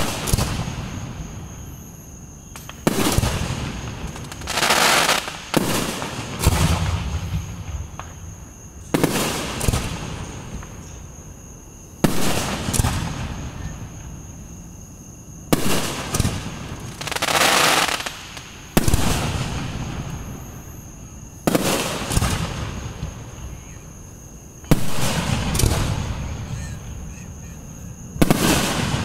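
Aerial fireworks shells bursting one after another, a sharp boom roughly every two to three seconds, each trailing off in a rumbling echo.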